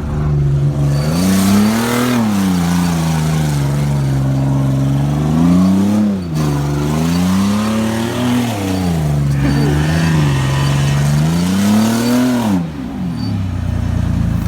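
Chevy Blazer engine revving up and falling back again and again, several surges in a row, as the truck is driven in donuts.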